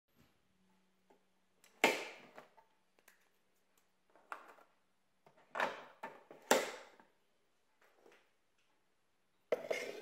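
A handful of sharp plastic clunks and clicks, a second or more apart, as the lid of a Bosch Tassimo pod coffee machine is lifted and shut, then a ceramic mug knocks down onto its drip tray near the end.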